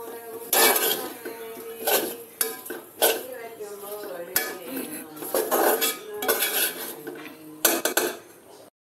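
A metal spoon stirring and scraping chunks of dry beef roast around a metal pan, in clattering scrapes about once a second.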